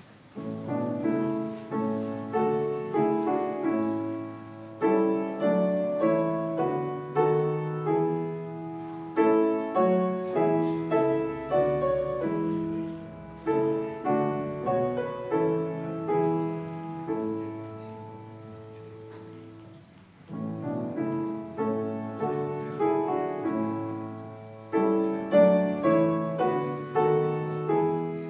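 Solo piano playing a piece of chords and single notes, each struck and dying away, with a softer passage about two-thirds of the way through before it picks up again.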